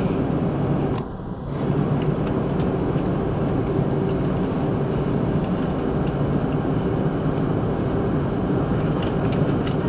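Airliner cabin noise inside an Airbus A330-300 taxiing: the steady hum and drone of the engines at low thrust, dipping briefly about a second in.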